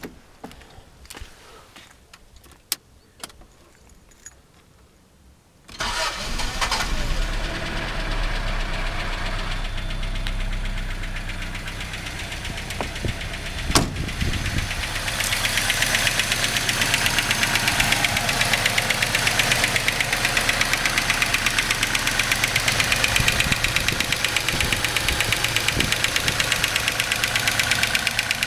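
Toyota 3T-GTEU turbocharged four-cylinder engine cranked and starting about six seconds in, then running with a fast, even ticking noise that grows louder from about fifteen seconds in: the extraneous engine noise being shown. A few light clicks come before the start.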